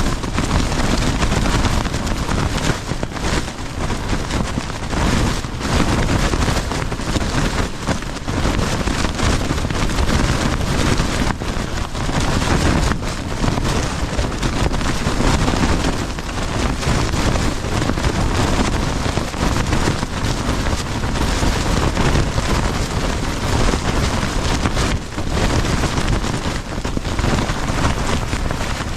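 Strong storm wind battering a backpacking tent, the fabric flapping and snapping in fast, irregular gusts, with heavy wind rumble on the microphone.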